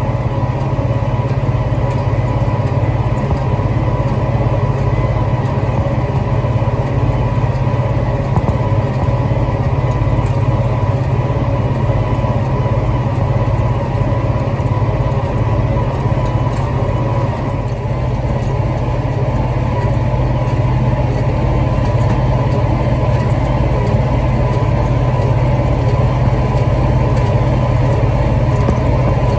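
Tractor engine running steadily, with a strong low hum.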